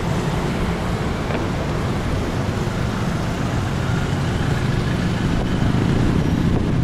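Steady road traffic noise, with cars and a motor scooter driving past close by.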